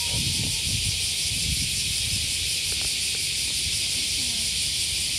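Cicadas singing: a steady, dense, high-pitched buzz that holds an even level throughout.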